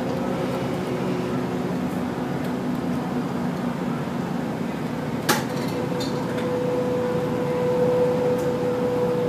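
Moving bus heard from inside the cabin: a steady drone of engine and road noise, with a steady whine coming in about six seconds in. A single sharp click sounds a little past halfway.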